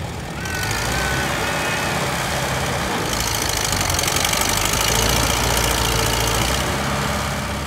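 Small red vintage tractor's engine running under load as it pulls at a tractor pull. It gets louder about half a second in, is loudest from about three seconds in, and eases off near the end.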